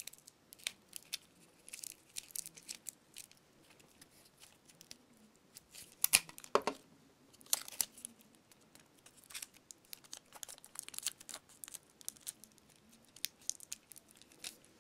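Aluminium foil crinkling and clear sticky tape crackling as they are pressed and wrapped around the tip of a pen, in scattered short crackles with a sharper, louder one about six seconds in.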